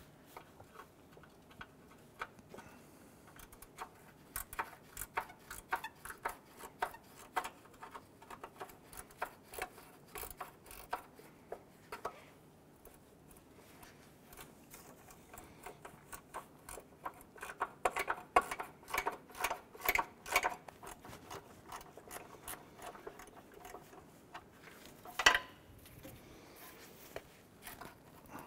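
Ratcheting wrench clicking in quick runs of strokes as it backs out a 10 mm bolt, with short pauses between runs and one sharper knock near the end.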